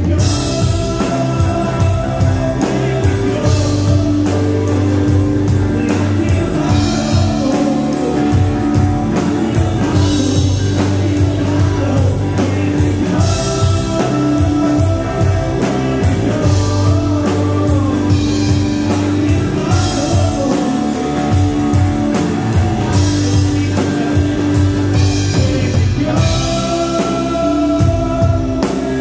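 Live rock band playing a song with a singer over drum kit and guitar.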